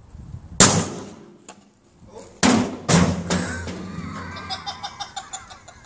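A loud, sharp bang about half a second in that rings off briefly, then two more sharp bangs around two and a half and three seconds in, followed by a run of light ticks.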